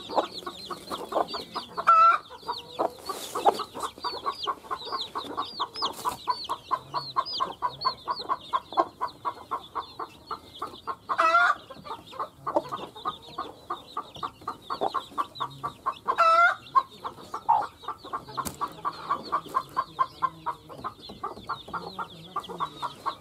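Mother hen clucking in a quick, steady series while her chicks keep up a constant high peeping. A few louder rising calls stand out about two, eleven and sixteen seconds in.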